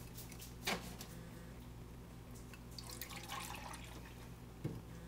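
Milk pouring from a plastic gallon jug into a measuring cup, a short liquid pour about three seconds in. There is a light knock near the start and a dull thump near the end.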